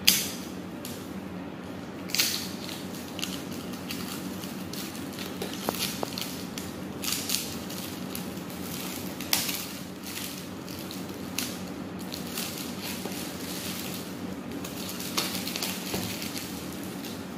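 Plastic wrap and seals being pulled and cut off a cardboard smartphone box: crinkling and crackling with sharp scratchy noises, loudest right at the start and about two and nine seconds in.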